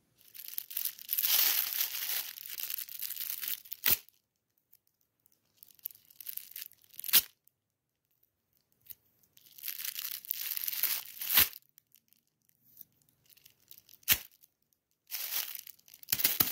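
Red metallic foil gift wrap being crinkled and torn open by hand, in four separate bursts of crackling with pauses between them. Several bursts end in a sharp click.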